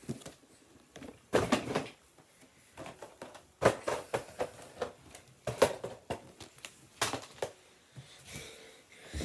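Handling noise: irregular knocks, taps and clicks of objects being moved and set down, with a brief rustle just after 8 seconds.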